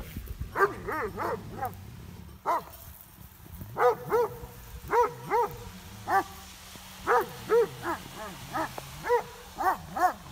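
Livestock guardian dogs barking repeatedly in short, irregular barks, with a brief lull about three seconds in. This is alarm barking at a river otter hidden in a blackberry patch.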